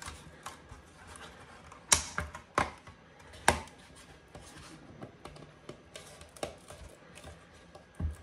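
Hands pressing a painted wooden insert back into a counter's faceplate frame: a few sharp clicks and taps, the loudest about two and three and a half seconds in, with softer handling ticks between.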